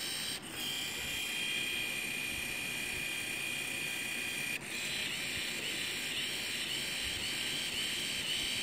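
The small gear motor of a two-way motorised brass ball valve actuator whirring with a steady high whine as it turns the valve ball. It stops briefly about half a second in and again after about four and a half seconds, then runs again, in a calibration cycle that times the valve's full travel between fully open and fully closed.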